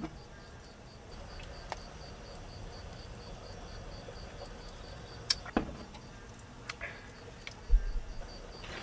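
A cricket chirping steadily, a high-pitched pulse about five times a second. A few small clicks come from the beer can being handled, and near the end a dull thump as the can is set down on the table is the loudest sound.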